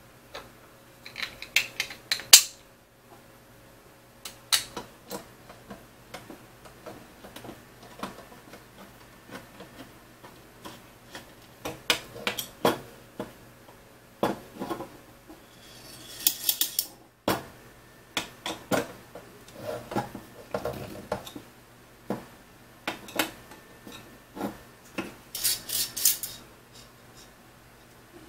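Small steel machine screws clicking and clinking as they are handled on a tabletop, and a hand screwdriver driving screws through a plastic printer motor mount into an aluminium T-slot extrusion. Scattered taps throughout, with two short rattling bursts, one about midway and one near the end.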